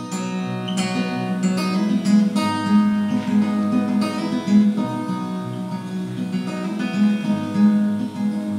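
Solo acoustic guitar: a run of picked notes ringing over a sustained low bass note, the instrumental opening of a song.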